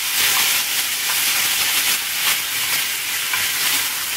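Wet ground coriander and green chilli paste sizzling in hot sesame and coconut oil as it goes into a frying pan, a steady loud hiss with a few light scrapes of a wooden spatula.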